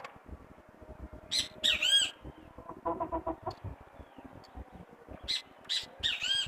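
Chickens squawking: two bouts of loud, high calls, about a second and a half in and again near the end, with a short run of low rapid clucking in between.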